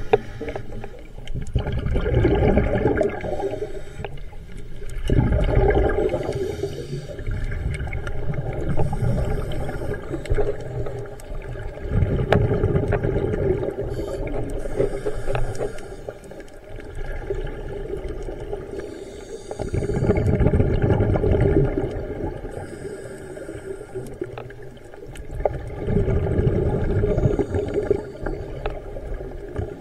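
Scuba diver breathing through a regulator underwater, heard on the camera's housing: exhaled bubbles gurgle and rumble in a swell every several seconds, with a fainter hiss of inhalation in between.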